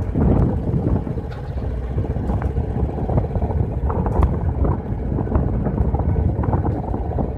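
Wind rumbling on the microphone over the running noise of a motorcycle, with scattered short clicks and rattles throughout.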